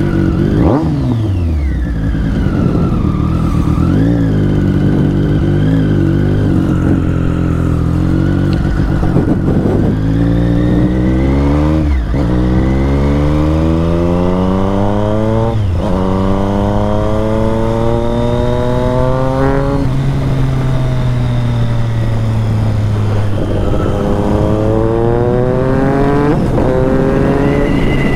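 Triumph Street Triple 765 RS's three-cylinder engine accelerating through the gears: the revs climb and drop sharply at each upshift, three times in quick succession. It then eases off and pulls up through the revs again near the end.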